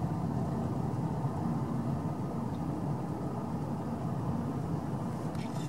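Steady low engine and tyre rumble heard inside a car driving slowly, with a faint steady hum.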